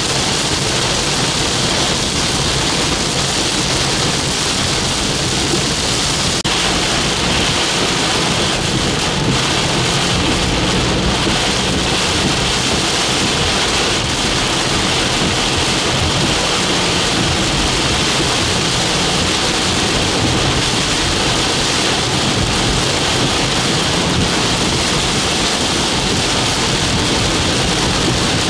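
Heavy rain falling on a vehicle, a steady loud hiss.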